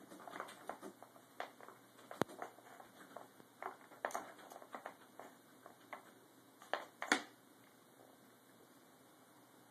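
A small dog nosing and pawing at a wooden puzzle toy, with scattered light clicks and knocks as the wooden sliders and pegs shift, the loudest a pair about seven seconds in.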